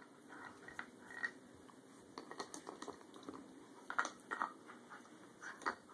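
German Shepherd puppy chewing a deer antler: irregular clicks and scrapes of teeth on hard antler, the loudest about four seconds in.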